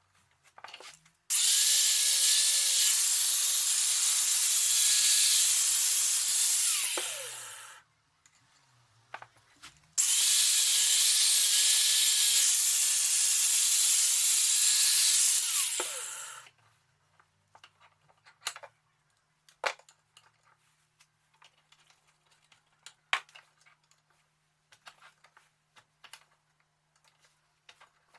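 Electric hand power tool run twice for about six seconds each, with a steady whine and hiss, winding down after each run. Light clicks and knocks follow.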